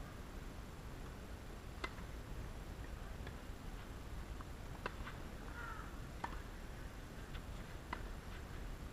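A few sharp, irregularly spaced taps of a tennis ball bouncing on the court, over faint steady outdoor background noise.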